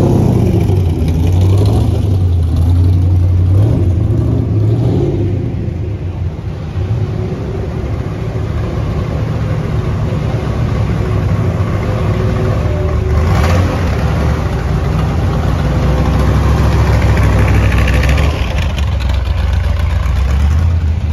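Car engines running as cars drive slowly past one after another: a modified race car at the start, the loudest, then a yellow Chevrolet Corvette's V8. The rumble dips after the first few seconds, has one brief louder burst about halfway through, and swells again near the end.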